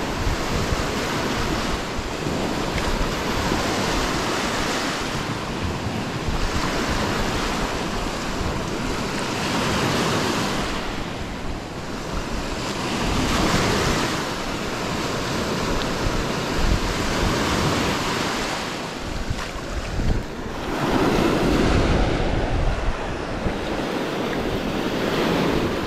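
Waves breaking on a Lake Huron pebble shore, the wash swelling and easing every few seconds, with wind buffeting the microphone.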